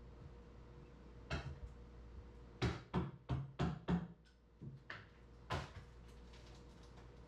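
A series of sharp knocks: one about a second in, then five loud ones in quick succession, about three a second, and a few lighter ones after. A faint steady hum runs underneath.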